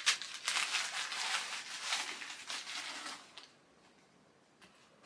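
Crumpled newspaper rustling and crackling as it is stuffed into a tall suede boot to keep it standing, cutting off suddenly about two-thirds of the way through.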